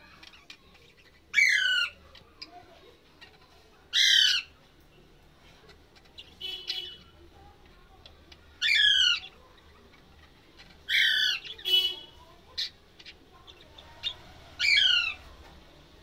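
Budgerigars calling: five loud, harsh calls of about half a second each, a few seconds apart, each wavering downward in pitch. Quieter short chirps come between them.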